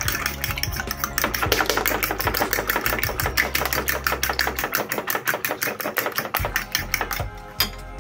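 Fork beating eggs in a bowl: rapid, regular clicking of the fork against the bowl, about eight strokes a second, stopping near the end.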